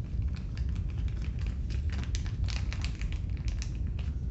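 An irregular run of small, sharp clicks and taps from handling small plastic parts, densest in the middle, over a steady low hum.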